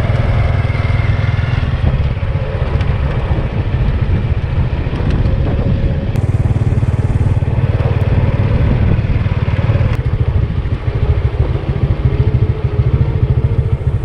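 Motorcycle engine running steadily as it is ridden at an even speed, heard from the rider's seat.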